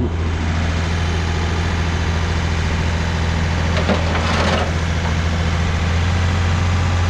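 Diesel engine of a working machine running steadily with a deep hum, with a short rough rattle or scrape about four seconds in.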